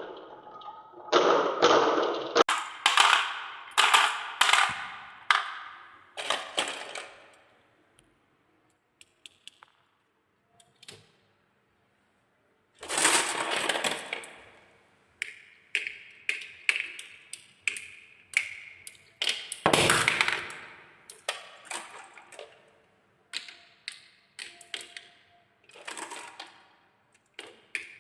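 Marbles rolling and clattering down a wooden marble run: rapid clicks and knocks in bursts, with a nearly quiet pause of a few seconds in the middle before the clatter resumes.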